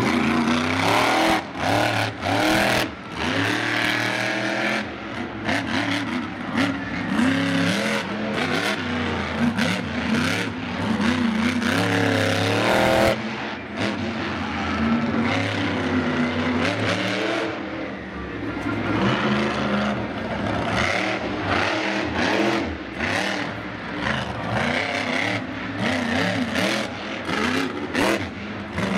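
Monster truck engine running loud under hard throttle, revving up and dropping back over and over as the truck drives, with many brief breaks where the throttle is lifted.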